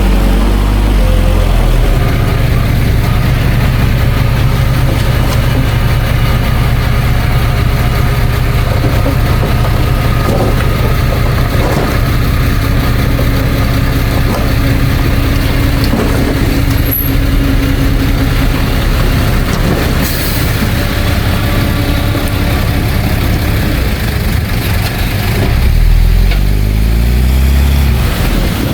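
Heavy diesel engine of earthmoving machinery running steadily under load, shifting pitch about a second in and revving up near the end.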